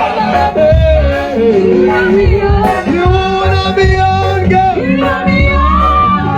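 Loud live gospel praise music: a sung melody gliding between long held notes over a heavy bass.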